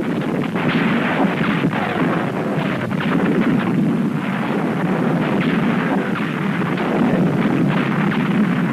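Battle sound effects on an old film soundtrack: a dense, continuous crackle of gunfire and artillery fire with no single big blast, sounding dull and muffled.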